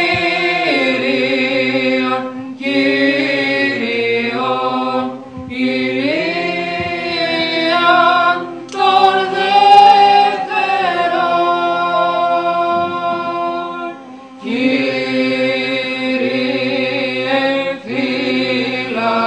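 Small choir singing Orthodox church chant a cappella, with long held notes in about five phrases broken by short breaths.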